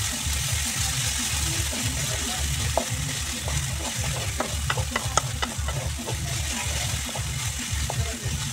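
Onions, tomatoes and curry leaves sizzling in oil in an aluminium kadai while a spatula stirs and scrapes across the pan in regular strokes, with a few light clicks against the metal.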